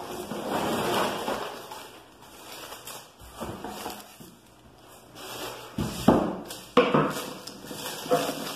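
A cardboard box and a plastic-wrapped cake turntable being handled during unpacking: rustling of cardboard and plastic film, then a few sharp knocks about two thirds of the way in, the loudest sounds, as the box and turntable are moved and set down on the table.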